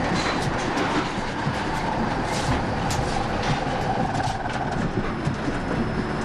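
Steady heavy rumbling with many irregular knocks and clatters: the reactor lid's heavy fuel-channel caps rattling in their sockets as steam pressure builds in the core beneath them.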